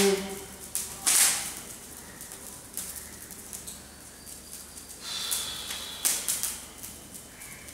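A held pitched note ends just after the start, followed by a loud sharp crack about a second in and then scattered softer clicks and rustling.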